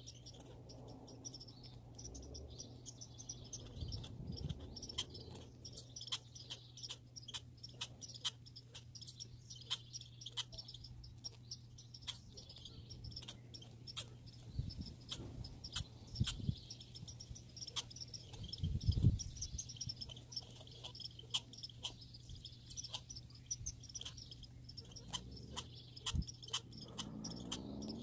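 Squirrels feeding: rapid, irregular sharp clicks and ticks, several a second, over a steady high trill and a low hum. A few dull thumps come through, the loudest about two-thirds of the way in.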